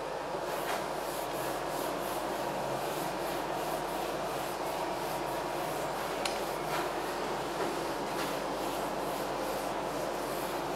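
Handheld eraser rubbing marker off a whiteboard in repeated back-and-forth strokes, a steady scrubbing rasp.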